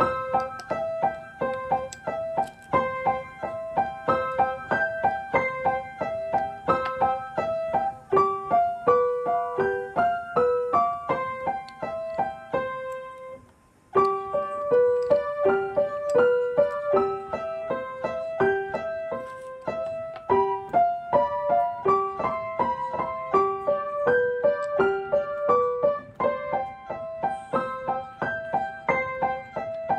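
Background piano music: a light melody of quick, evenly paced notes. It drops out briefly about halfway through, then starts again.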